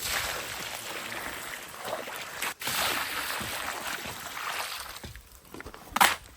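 Water rushing from a hose onto a concrete floor, a steady hiss that breaks off briefly about two and a half seconds in, with a sharp knock near the end.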